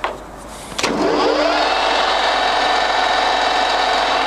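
Colchester Triumph 7 1/2 lathe's headstock gears starting up in top speed, 1000 rpm. After a click about a second in, there is a rising whine that settles into a steady gear whine.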